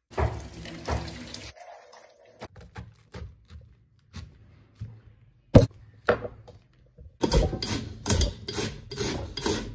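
Cut potato sticks swished around in water in a steel bowl. Then a kitchen knife cuts through a cabbage on a wooden board with a few sharp knocks, one loud. Then a metal box grater scrapes in quick rhythmic strokes, about three a second, shredding cabbage.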